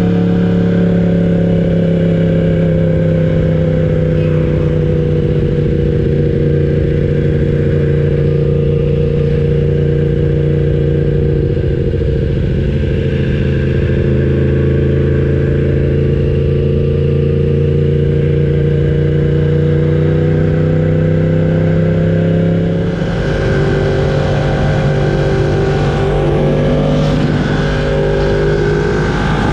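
Yamaha R1's crossplane inline-four engine running at a steady, nearly constant pitch. About 23 seconds in the note turns rougher and wavering, with more hiss over it.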